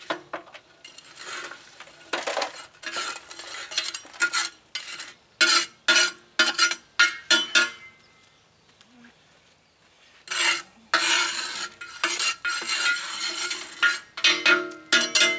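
Steel spatula scraping and clanking against metal, the tractor-disc wok and a metal bucket, while the wok is being cleaned out: groups of short scrapes and knocks with a ringing metal tone, a quiet pause about halfway, then more scraping.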